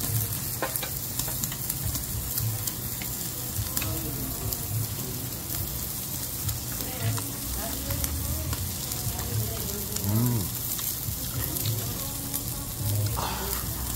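Pork cuts (뒷고기) and kimchi sizzling steadily on a round tabletop Korean BBQ grill pan.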